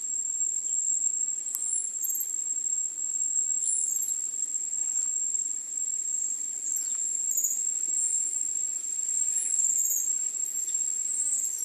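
An insect's steady, high-pitched trill runs unbroken, with a few faint, short chirps scattered over it.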